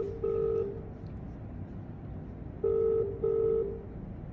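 Phone call ringback tone played through a smartphone's loudspeaker: the Indian-style double ring, two short low buzzing tones close together, heard once at the start and again about two and a half seconds in, while the call waits to be answered.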